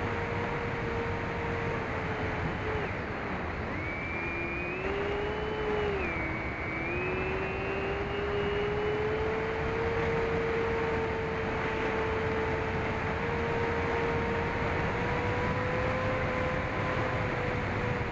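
Onboard audio from an AtomRC Penguin FPV plane in flight: the tone of its electric motors and propellers over a steady rush of wind. The pitch dips twice in the first few seconds, then climbs slowly as the throttle changes.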